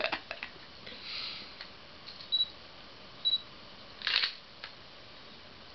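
A digital still camera: two short high electronic beeps about a second apart, then the shutter sound a second later, with a few small soft clicks before.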